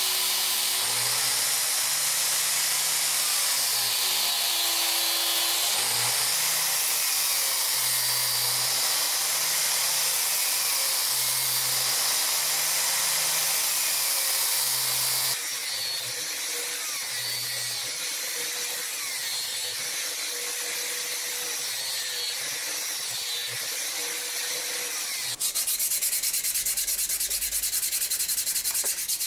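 Angle grinder clamped in a bench vise, running a sanding disc against a wooden knife handle: a steady motor whir under the hiss of grit on wood, its tone wavering. Near the end it gives way to the handle being sanded by hand, with quick repeated strokes.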